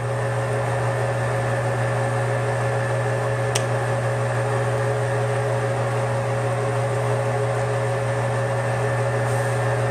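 Metal lathe running steadily, its four-jaw chuck spinning an offset tool-steel cam blank against a live centre during a turning cut: a constant low hum with a steady higher whine over it. There is a single sharp click about three and a half seconds in.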